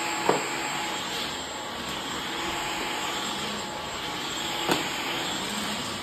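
Dyson V15 cordless stick vacuum running steadily with a rushing whoosh. Two short sharp clicks, one just after the start and one near the end.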